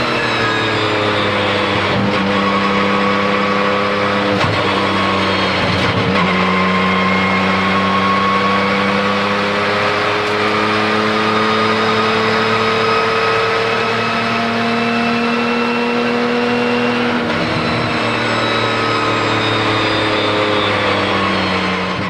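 Porsche 997 GT2 RSR's 3.9-litre twin-turbo flat-six under hard acceleration. Its pitch climbs steadily, then drops back at each of several gear changes on the sequential gearbox, every few seconds.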